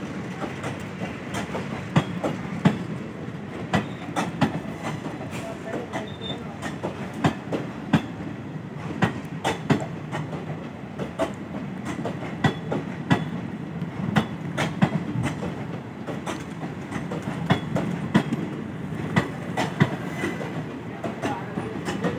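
Indian Railways passenger coaches rolling past on departure: a steady rumble of wheels on rail, broken by frequent, irregular sharp clacks as the wheels cross rail joints.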